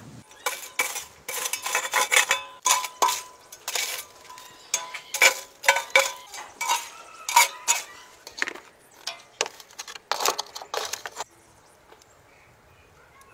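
Rapid metallic clanks, scrapes and clinks with a short ringing note: a metal ember scraper pushing coals and ash across the floor of a wood-fired brick oven, and a metal baking tray clanking as it goes in. The clatter stops about eleven seconds in.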